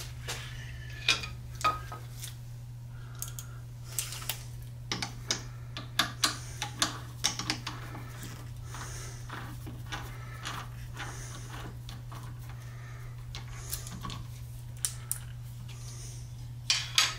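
Irregular clicks and knocks of a cast-resin blank being fitted into a lathe's four-jaw chuck and the chuck being tightened with a chuck key, over a steady low hum.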